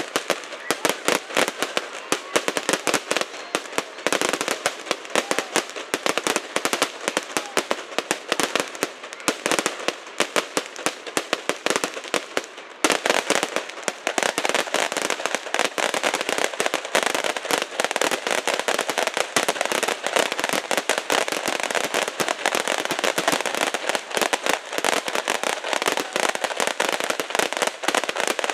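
Fireworks crackling: a dense, continuous rattle of many small sharp pops each second, with a brief lull about halfway through before it picks up again.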